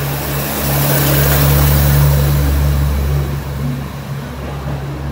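JR HC85 series hybrid diesel multiple unit pulling out of a station, with a steady low drone as its cars pass close by. The sound peaks in the first half, then fades near the end as the train moves away.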